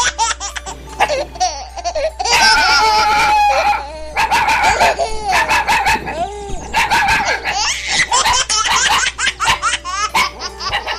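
Repeated bursts of high-pitched laughter, like a baby's, mixed with a dog's vocal sounds, including a drawn-out held call about two seconds in.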